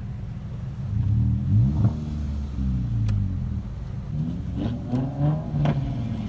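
A nearby pickup truck's engine being revved, heard from inside a car's cabin: a rise in revs about a second in and another around five seconds in, over the low hum of idling traffic.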